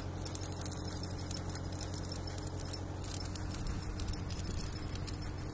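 Stick arc welding on the steel expansion-joint profiles: the arc crackles and sputters irregularly over a steady low hum, and the crackle stops near the end.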